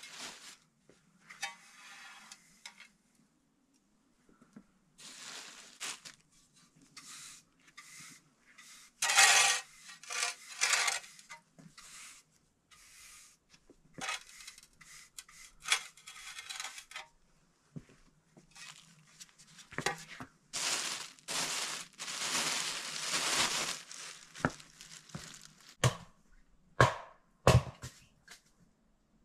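Irregular bursts of rustling, tearing handling noise, then several sharp knocks in the last few seconds.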